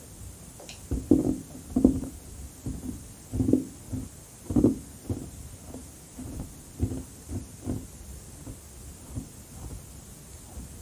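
Crushed carbonated ice being chewed: a run of muffled crunches, about one or two a second, loudest in the first half and lighter toward the end.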